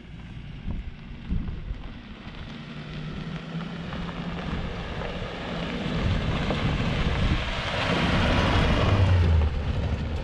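An off-road vehicle driving on a dirt trail, its engine running under a rising rush of tyre and wind noise that grows louder toward the end.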